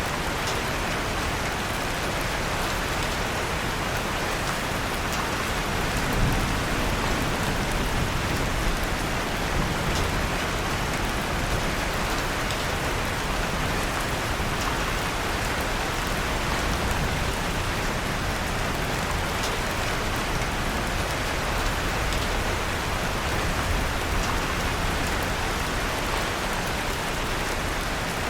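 Steady rain falling, with a few faint, scattered crackles from a wood fire in a fireplace.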